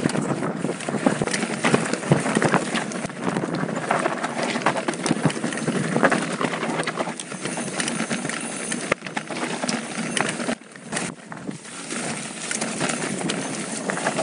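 Mountain bike descending a rocky dirt singletrack: tyres crunching over gravel and loose rocks, with a dense, continuous rattle of knocks and clicks from the bike.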